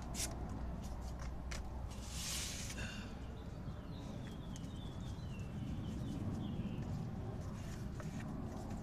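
Low steady background noise, with a few light clicks, a short rustle about two seconds in, and a run of faint chirping bird notes from about three to six seconds in.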